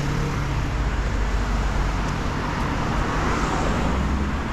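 Road traffic passing close by: engine rumble and tyre noise from a car going past, swelling to its loudest about three seconds in.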